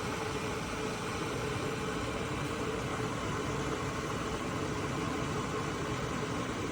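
Electric gooseneck kettle heating water: a steady rushing hiss with a faint hum.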